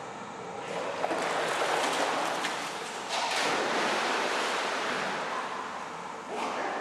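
Pool water splashing and sloshing as a dog swims and paddles, with a sharp surge of heavier splashing about three seconds in.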